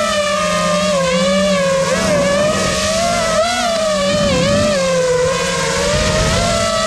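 FPV quadcopter's motors and propellers whining, the pitch rising and falling smoothly as the throttle changes, heard from the onboard camera.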